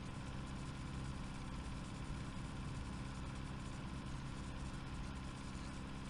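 Steady low hum with hiss, a constant drone that does not change.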